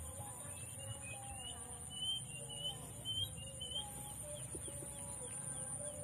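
Small birds, munias, giving a quick run of short rising chirps that stops about four seconds in, over a steady high whine and lower wavering calls.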